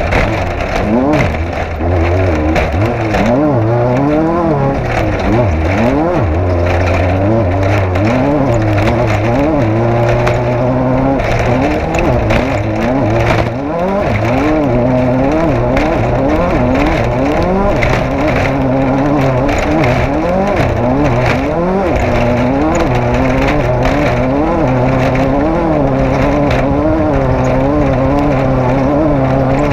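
Off-road race vehicle's engine running hard, its revs climbing and dropping again and again as the throttle is worked, with frequent knocks and clatter throughout.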